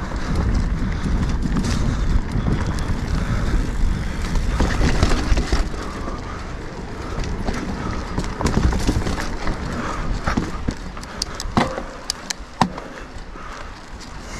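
Mountain bike riding over a dirt trail: a steady low rumble of tyres on the ground, with sharp clicks and knocks of the bike rattling over bumps near the end.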